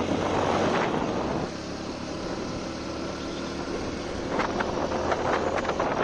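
Motorcycle running at road speed, its engine nearly buried under heavy wind rushing over the microphone, with a few sharp knocks about four to five seconds in.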